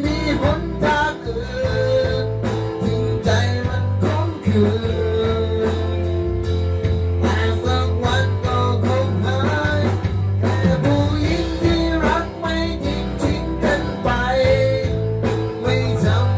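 Music with guitar, a steady bass line and a beat, and a voice that may be singing.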